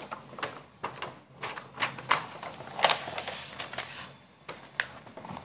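Paper notebook being handled on a table: pages rustling and being turned, and the notebook shifted, in a string of sharp crinkles and scrapes, loudest about three seconds in.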